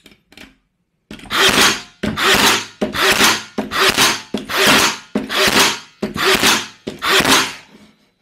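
FUJIWARA cordless 18-gauge finish nailer firing nails into a wooden block in continuous mode, eight shots in a row at a little more than one a second, each a loud burst of about half a second.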